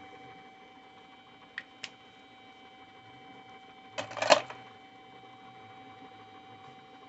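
Two sharp clicks, then about four seconds in a short clattering rattle of hard objects knocking together, over a steady hum.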